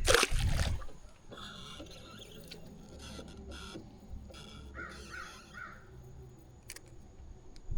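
A brief loud clatter at the start, then crows cawing in the background, with a run of four quick caws about five seconds in.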